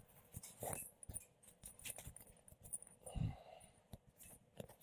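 Faint scattered clicks and rustles of a microphone being handled and settled, with a short low sound about three seconds in.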